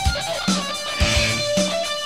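Instrumental passage of a 1987 thrash metal song: electric guitars playing a held, bending lead line over bass and drums, with a low drum hit about every half second.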